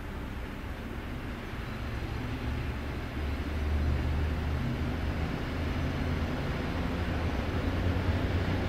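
Train approaching along the tracks: a steady low rumble of locomotive and wheels, growing louder about three seconds in.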